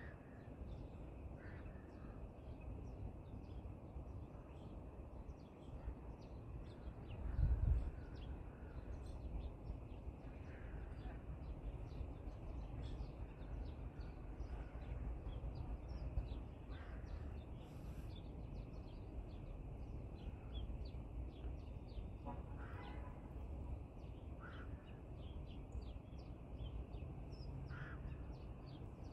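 Birds calling in a garden: many short, high chirps throughout, with a few longer, lower calls. Underneath is a steady low rumble, with a single low thump about seven seconds in.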